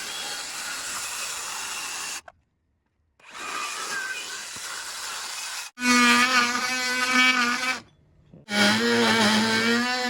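Power tools cutting wood in short bursts separated by abrupt breaks. First come two noisy cuts, fitting a circular saw ripping along the marked lines. Then come two louder cuts with a steady buzzing pitch, fitting an oscillating multi-tool making the cross cuts.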